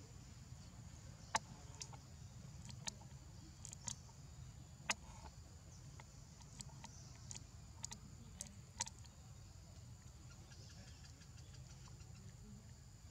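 Faint outdoor forest ambience: a steady high hiss over a low rumble, with about ten scattered sharp clicks in the first two-thirds, the loudest about a second in and near the middle.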